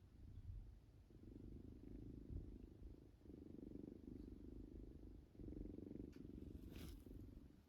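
Domestic cat purring softly, in three long stretches of about two seconds each with short breaks between breaths.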